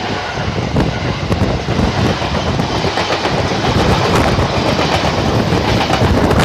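Train passing close by at a level crossing: a steady rumble and rush of noise with irregular clicks of the wheels over rail joints, growing slightly louder after about four seconds.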